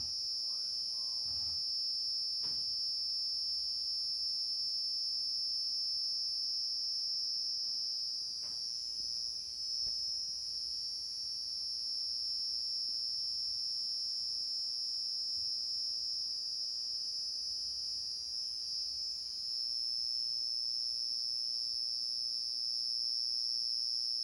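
A chorus of night insects, such as crickets, trilling in one continuous, shrill, high-pitched drone. It eases slightly partway through and then comes back to full strength.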